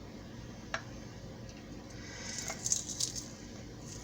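Handheld garlic press crushing a fresh garlic clove: a single click, then about a second of wet, crackly squishing near the middle.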